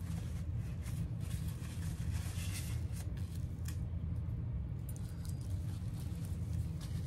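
Faint rustling and handling noises over a steady low hum, the rustles mostly in the first four seconds.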